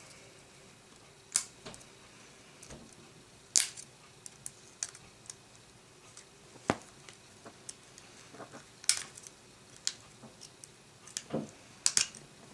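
Irregular small clicks, taps and short scrapes of a small screwdriver and plastic and metal parts as an iPod mini is taken apart, the loudest about a second and a half and three and a half seconds in.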